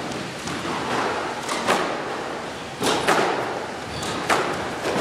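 Squash ball being struck by racquets and hitting the court walls during a rally: sharp knocks, several in quick pairs about a second apart, echoing in the court.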